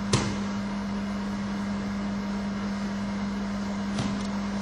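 A steady low hum over an even hiss, with one sharp thud just after the start as the thrown aikido partner lands on the mat, and a faint knock about four seconds in.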